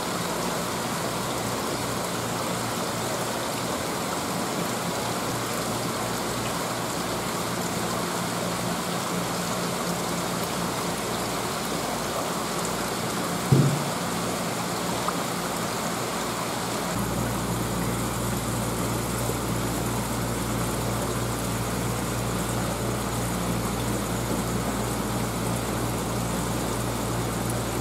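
Steady rush of aquarium water with a low pump hum; the hum grows stronger about two-thirds of the way through. A single knock comes about halfway.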